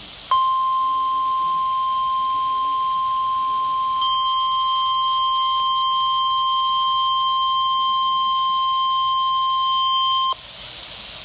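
NOAA Weather Radio warning alarm tone: a steady single 1050 Hz tone that sounds for about ten seconds and cuts off abruptly near the end, signalling that an alert broadcast is about to be read. It comes through a weather radio receiver over faint static from a weak signal.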